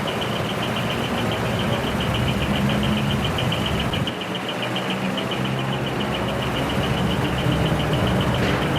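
Heavy truck engine running with a steady low rumble, with a rapid, even high-pitched pulsing heard alongside.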